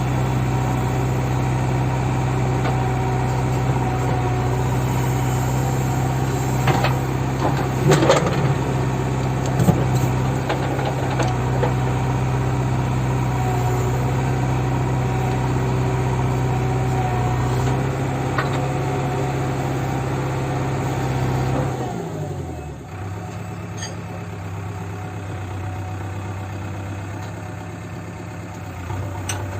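JCB backhoe loader's diesel engine running steadily at raised revs, with a few sharp knocks of metal against metal around eight to ten seconds in. About twenty-two seconds in the revs drop and the engine settles to a lower, quieter idle.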